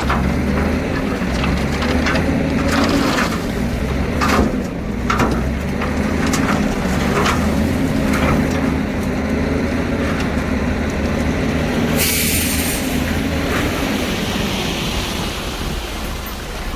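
A Komatsu D41P crawler dozer's diesel engine running steadily, with repeated clanks and knocks from the working machine. There is a short hiss about twelve seconds in.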